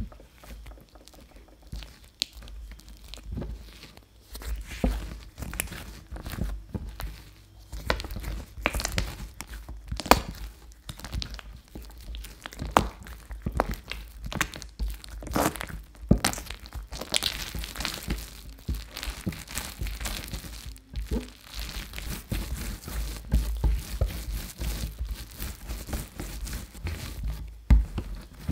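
Bread dough being kneaded by hand on a silicone mat with soft butter worked into it: irregular wet squishing, sticky tearing as the dough is pulled apart, and soft thuds as it is pressed down, continuing without pause.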